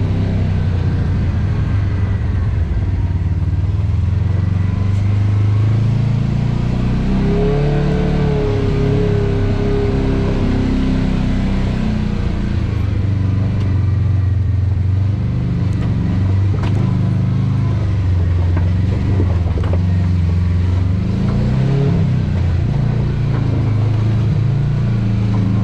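Off-road vehicle's engine running at low speed, its note rising and falling with the throttle as it crawls up over rock.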